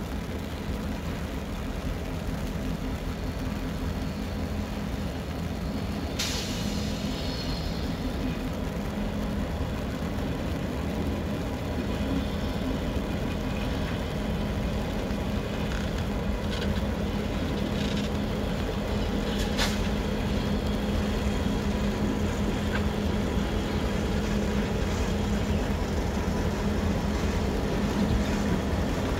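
Diesel locomotive engine running with a steady low hum, slowly growing louder as the CN unit draws closer. A sharp hiss-like burst cuts in about six seconds in and fades over a second or so, and a shorter sharp sound comes near twenty seconds.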